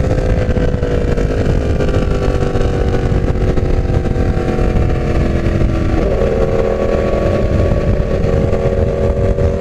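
Yamaha R1 inline-four engine running through a full exhaust with no catalytic converter, under heavy wind noise. The engine note sinks slowly as the bike slows, then about six seconds in steps up and grows stronger as the throttle is opened again.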